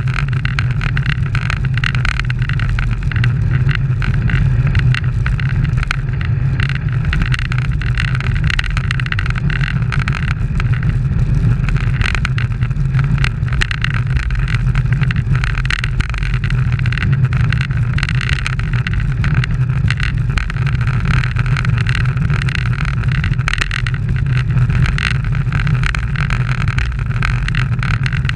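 Steady wind rumble and road noise on a camera mounted on a road bicycle riding at race speed in a bunch, deep and even throughout.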